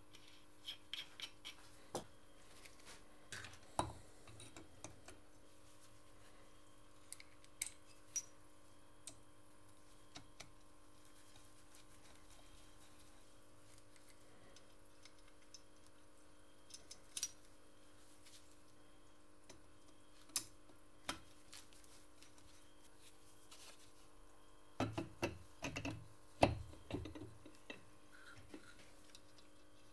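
Light, scattered clicks and knocks of small metal moped-engine parts being handled over a faint steady hum. A cluster of louder knocks comes near the end as the flywheel rotor is fitted over the ignition stator.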